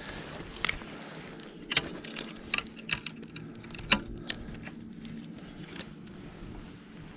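Close handling noise: about a dozen sharp, irregular clicks and knocks over several seconds, the loudest about four seconds in, as reeds are pushed aside and a spinning reel is handled right by the microphone.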